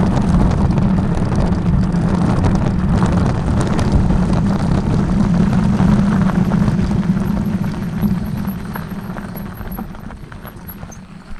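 A vehicle engine running steadily under wind noise, dying away over the last few seconds.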